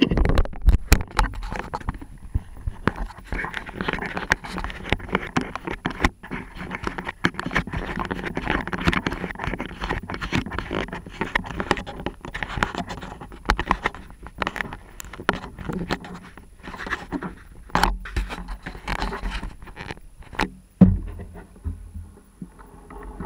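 Close handling noise from an action camera being fitted and adjusted: scraping and rustling against the microphone, with scattered clicks and knocks and one louder knock near the end.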